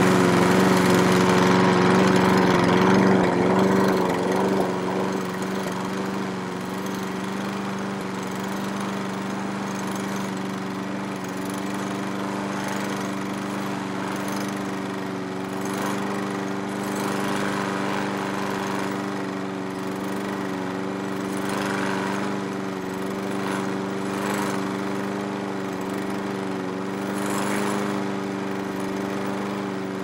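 Lawn mower engine running steadily while mowing. It is louder for the first four seconds or so, then settles to a lower, even level with brief swells now and then.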